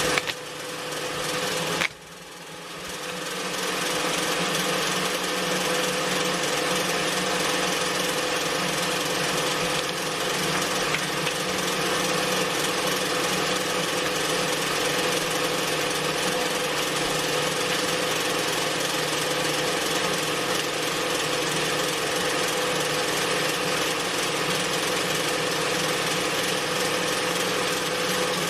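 Embroidery machine stitching at speed, a steady rapid mechanical chatter with a hum. It stops briefly about two seconds in, then runs back up to full speed and holds it.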